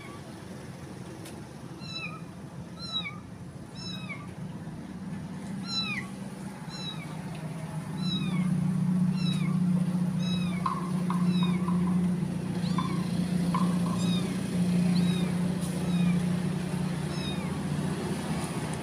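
Orange street kitten mewing over and over, short high cries that fall in pitch, about two a second. A steady low hum comes in and grows louder from about eight seconds in.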